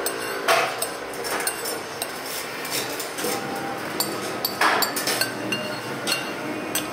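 Metal spoon clinking and scraping against a ceramic soup bowl as soup is eaten, with scattered dish and cutlery clinks throughout.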